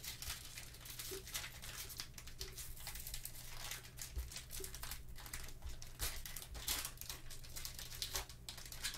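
Plastic trading card pack wrapper crinkling and tearing open in gloved hands, a dense, irregular crackle.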